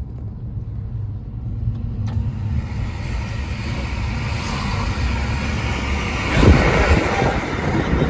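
Low rumble of a car driving, heard from inside the cabin. About two seconds in, the sound opens up into louder street traffic noise, with a brief swell near the end.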